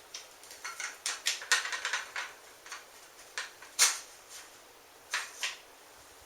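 Metal clicks and scrapes from a 20-gauge Mossberg 500 pump shotgun as its barrel is worked loose and slid off: a quick run of small clicks over the first couple of seconds, then a few sharper single clicks, one near the middle and two close together near the end.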